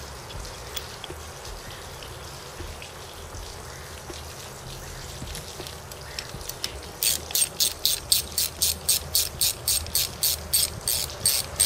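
Quiet handling for several seconds, then a socket ratchet clicking steadily, about four to five clicks a second, as the nut on the outboard's timing wheel is run down.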